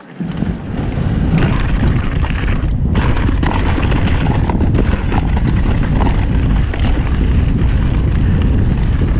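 Mountain bike descending a gravel trail: tyres rumbling over the surface and wind buffeting the bike-mounted camera's microphone, with scattered clicks and rattles from the bike.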